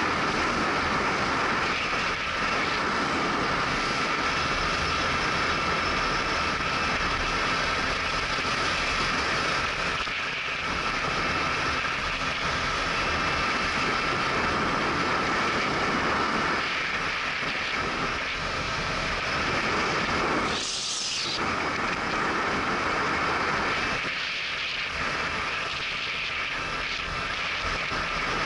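Steady wind and road noise from riding a Yamaha Neos scooter at speed, with the scooter's small engine running evenly underneath. A short rush of higher-pitched noise about three-quarters of the way through.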